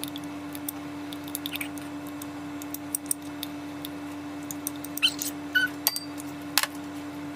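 A utensil scraping thick peanut butter out of a clear measuring cup into a mixing bowl: light clicks and taps with a few short squeaks, loudest about five to six and a half seconds in, over a steady low hum.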